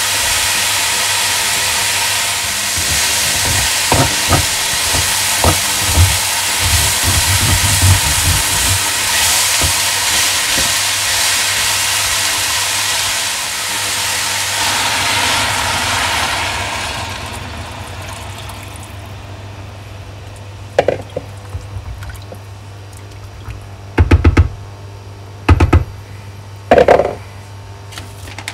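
Vegetables sizzling loudly in hot oil in a steel pot as more chopped cabbage and potato are tipped in and stirred, with knocks from the stirring. The sizzle dies away at about 17 s once water is poured in, and a few sharp knocks follow near the end.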